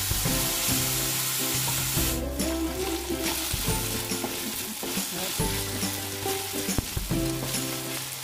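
Diced pork sizzling in oil in a wok while being stirred, with the scrapes and taps of a wooden spatula against the pan as the meat is sautéed.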